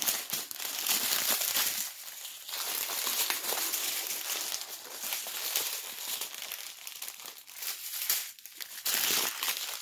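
Clear plastic bags of diamond painting drills crinkling as they are handled and laid out.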